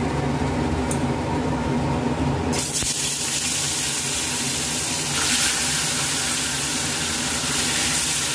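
Fish pieces sizzling in hot oil in a steel kadai. The frying hiss starts about two and a half seconds in and gets louder about five seconds in as another piece goes into the oil, over a steady low hum.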